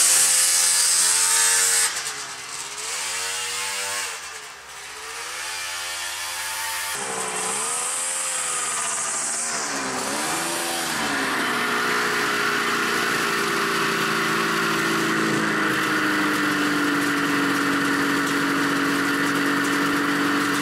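Snowmobile engine running loud, its pitch swinging up and down several times as the throttle is worked. About halfway through it settles into a steadier note, running close by.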